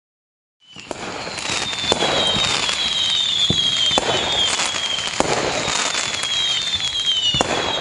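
Fireworks sound effect fading in about half a second in. Several whistles fall in pitch over repeated sharp bangs and dense crackling.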